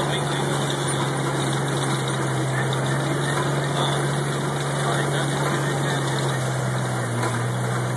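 Diesel engine of a large John Deere four-wheel-drive tractor running steadily under load, a constant low drone, as it pulls a vertical tillage tool through corn stalks. A dense rushing noise sits over the drone.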